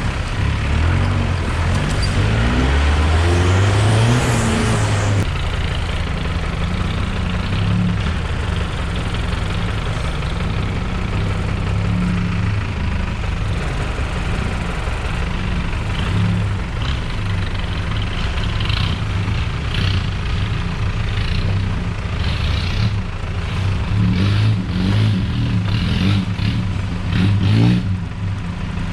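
A 4x4's engine revving up over the first few seconds, then running on under shifting load, with repeated knocks and rattles over it in the second half, as from the vehicle working over rough ground.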